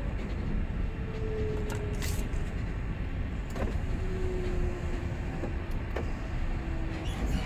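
Container truck's diesel engine and running noise heard from inside the cab while driving slowly, a steady low rumble with a faint high whine that drifts slightly lower. A few light clicks and rattles.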